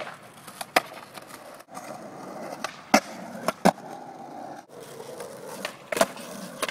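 Skateboard wheels rolling over asphalt and concrete with a steady drone, broken by several sharp clacks as the board hits the ground and the curb.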